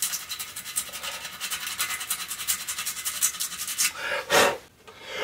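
Sandpaper rubbed by hand over the joining seam of a metal bicycle rim, a fast run of short scratchy back-and-forth strokes, smoothing off burrs that may be cutting inner tubes. The rubbing stops about four seconds in, and two short whooshes follow.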